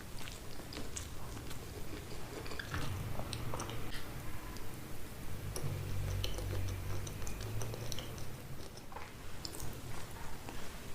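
Close-up chewing of a chilli cheese dog, with many small sharp mouth clicks and smacks.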